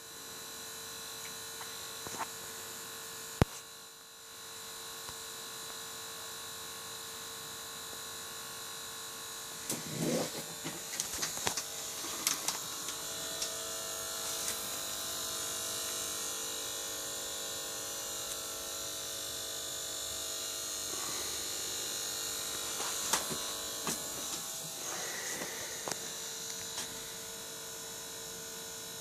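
Pump of a Swiftech H220 all-in-one liquid CPU cooler running with a steady buzzing whine, the noise problem its owner is showing. A sharp click comes about three seconds in, and scattered clicks and knocks come around ten seconds in and again near twenty-three seconds.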